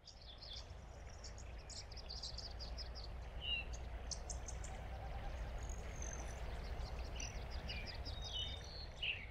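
Several small birds chirping and trilling in quick runs of high notes over a steady low outdoor rumble; the sound fades in at the start.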